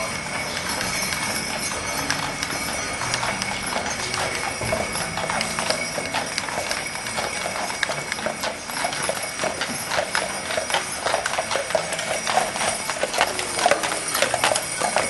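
Horse hooves clip-clopping, the hoofbeats growing louder and closer together in the second half.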